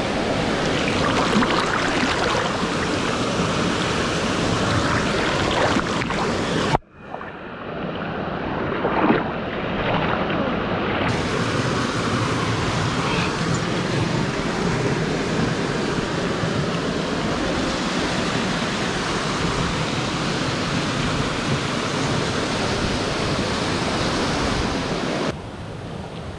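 Mountain stream water rushing steadily and loudly over rocks. It cuts out suddenly about seven seconds in, comes back within a second or two, and turns quieter near the end.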